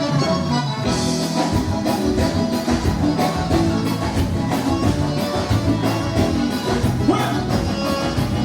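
Live band playing gaúcho dance music, with a steady drum beat, bass and guitar.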